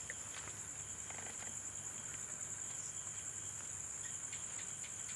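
Crickets chirping in a steady, high-pitched trill, with a few faint clicks.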